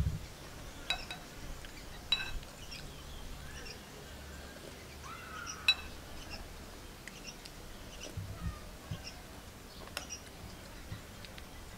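Metal spoon clinking against a ceramic bowl while eating: a handful of sharp, ringing clinks spaced a few seconds apart, with the loudest near six seconds in.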